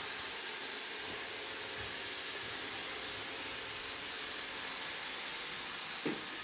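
Roomba robot vacuum running, its suction fan and brushes making a steady, even whirring hiss. A brief low sound breaks in about six seconds in.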